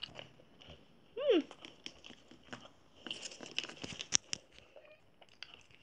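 Light crinkling and small sharp clicks from hands handling pieces of a chocolate egg, busiest from about three to four and a half seconds in. About a second in there is a short falling voice sound.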